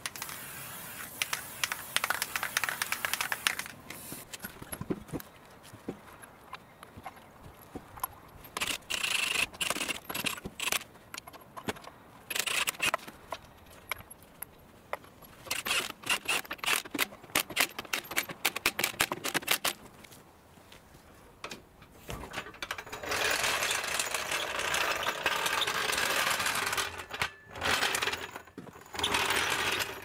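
Hiss of an aerosol spray can, then clinks and scrapes of metal parts, and a cordless impact wrench running lug nuts on in several bursts, the longest lasting a few seconds near the end.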